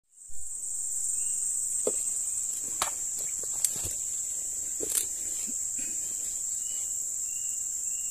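Steady high-pitched drone of insects, with a few light clicks and rustles over it.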